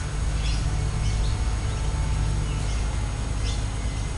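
Small birds chirping, short descending calls every second or so, over a steady low rumble of wind on the microphone.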